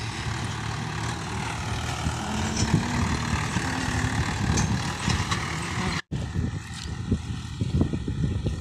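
Swaraj 843 XM tractor's diesel engine running under load while working the field. The sound breaks off for an instant about six seconds in, then carries on.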